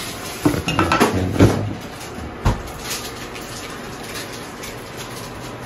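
Kitchen clatter as a knife cuts grilled pork on a wooden cutting board among plates and bowls: a quick run of knocks and clinks in the first second and a half, and one sharp knock about two and a half seconds in, then only faint background.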